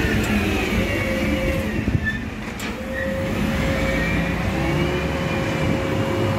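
Truck-mounted TLC T162 hydraulic crane slewing its boom: a steady mechanical whine with higher tones that waver up and down, over a low rumble.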